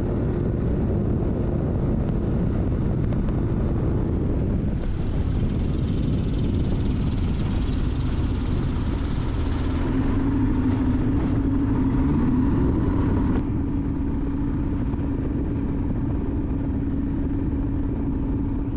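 Rotax engine and propeller of a RANS S-7S light taildragger running steadily in flight, a dense low drone. About four and a half seconds in a hiss of rushing air joins it, and it stops suddenly around thirteen seconds in.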